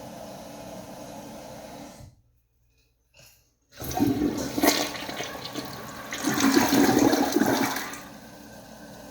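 Toilet flushing: a loud rush of water starts suddenly about four seconds in, swells twice and dies away about four seconds later. Before it there is a steady low background hiss and a brief dead-silent gap.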